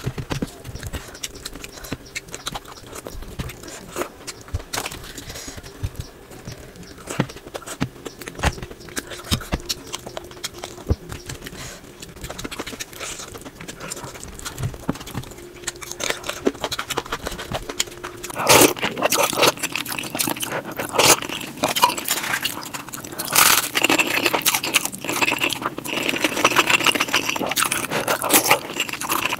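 Close-miked eating sounds of an Indian curry-and-rice meal: chewing with frequent short crunching bites. About eighteen seconds in, the bites become louder and crisper.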